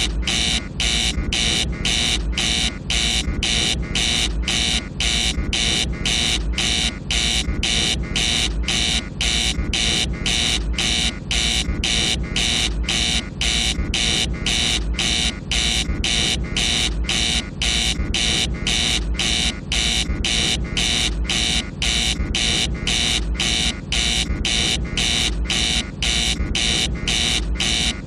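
Spacecraft command module master alarm: a harsh buzzing tone pulsing evenly about twice a second, over a steady low rumble.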